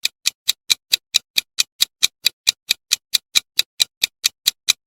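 Clock ticking sound effect used as a quiz countdown timer: an even run of short, sharp ticks, about four or five a second.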